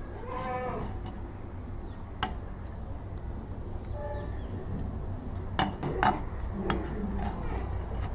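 Metal spatula scraping and clinking in a stone mortar while scooping out crushed garlic, ginger and green chilli paste, with a few sharp clinks about two, five and a half and six seconds in.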